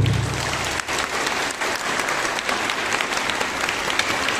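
Audience applauding, a dense even patter of many hands clapping, while the ring of the last drum stroke dies away in the first second.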